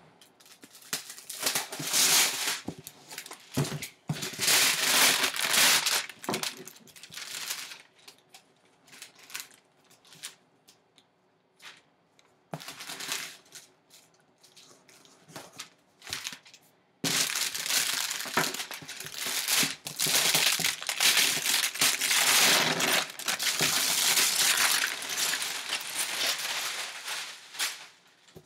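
Plastic shrink-wrap crinkling and tearing as it is pulled off a cardboard box and bunched up, coming in bursts with short lulls, and a knife slitting packing tape on the box partway through.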